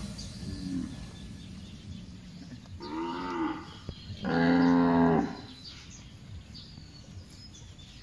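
Zebu cattle mooing: a short faint moo near the start, then two longer moos about three and four and a half seconds in, the last one the loudest, about a second long.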